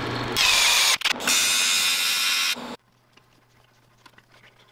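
Metal lathe running and cutting a small metal fitting: a loud, high-pitched machining noise over the motor hum, briefly interrupted about a second in and stopping suddenly a little under three seconds in. After that come a faint hum and a few light clicks, as a tap is worked by hand in a vise.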